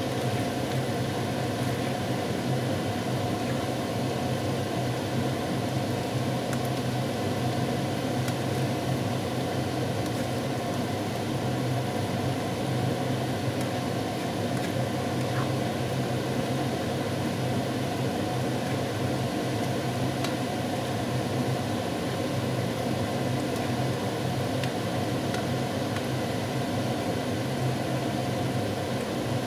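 A steady low motor hum with a constant hiss over it, unchanging throughout, with a few faint ticks of a spatula stirring a stir-fry in a wok.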